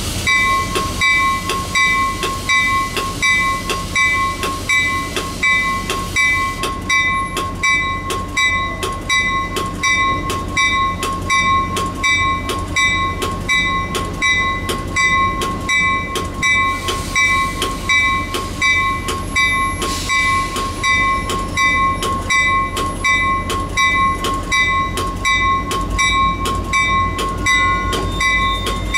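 A railroad bell ringing in a steady, even rhythm of a bit under two strikes a second, each strike ringing on. Underneath, a train's low rumble grows louder near the end.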